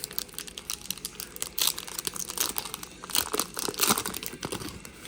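Wrapper of a trading-card pack crinkling and crackling in the hands as it is opened, a dense run of irregular crackles.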